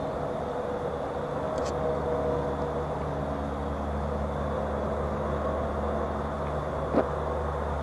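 Steady low mechanical hum with a few steady tones over a background hiss, and one short sharp click about seven seconds in.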